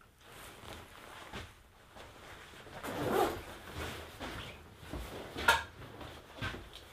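Handling noises from a person moving things about: scattered clunks and rustling, with a longer rustle about three seconds in and a sharp click about five and a half seconds in.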